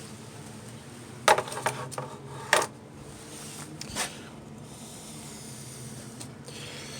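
Metal parts knocking and clinking as the radiator bracket and its bushing are worked loose and removed: a quick cluster of sharp knocks about a second in, another a second later, and a fainter one near the middle.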